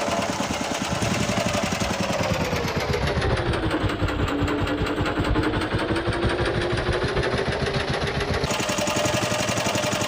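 Honda GX120 single-cylinder four-stroke engine driving a longtail boat, running hard under load against strong rapids. Its speed sags about two seconds in and stays low for a few seconds, then picks back up near the end.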